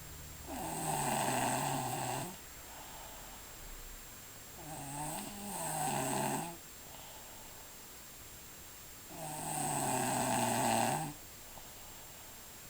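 A sleeper snoring loudly: three long, rasping, pitched snores about four and a half seconds apart, one on each breath, with quieter breathing between them.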